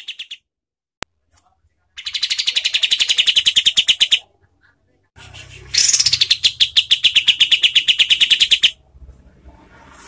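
Kapas tembak bulbul singing its harsh, fast rattling 'tembakan': two long runs of rapid repeated notes, about ten a second. The first run starts about two seconds in and lasts two seconds. The second starts about five seconds in and goes on for three and a half seconds, opening with a quick falling note. A single sharp click falls about a second in.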